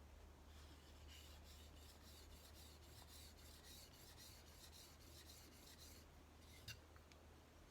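Steel chisel rubbed back and forth flat on its back on a medium India oil stone, a quick run of even scraping strokes that removes wear from the back and pushes the burr over to the bevel side. The strokes stop about six seconds in, followed by a single light click.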